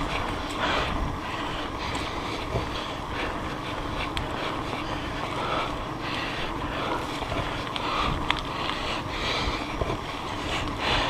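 Mountain bike ridden over a dirt trail: wind on the microphone, tyre rumble and short rattles and knocks, with the buzzing ratchet of a Speedone Torpedo rear hub's 8-pawl, 96-engagement freehub coming through in patches while coasting.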